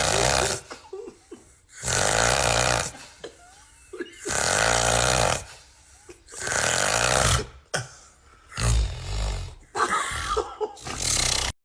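Heavy snoring: loud, noisy snores about every two seconds, each lasting roughly a second, with quieter breathing between them. The recording cuts off abruptly near the end.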